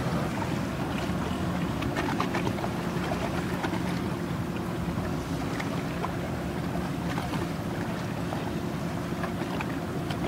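A boat engine running with a steady low drone, over wind and water noise.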